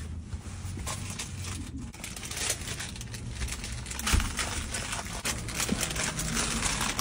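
Plastic candy wrappers crinkling and rustling as packets are grabbed and handled, in quick irregular crackles, with one dull thump about four seconds in.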